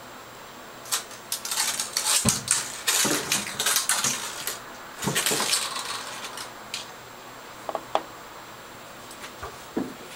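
Kittens playing in an empty bathtub: scrabbling claws and a small toy clattering against the tub. The clattering comes in bursts from about a second in to about six seconds in, then only scattered light clicks.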